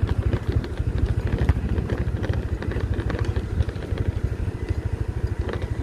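Motorcycle engine running with a steady, fast low pulsing while riding, with scattered small knocks and rattles from the bike jolting over a rough, uncemented road.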